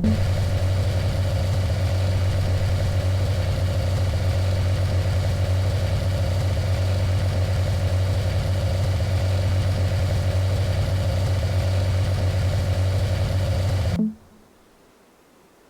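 Vehicle engine running steadily, a constant low hum that cuts off suddenly near the end.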